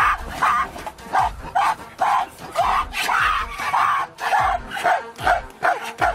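Gorillas giving a rapid series of loud, sharp barking calls, about two a second.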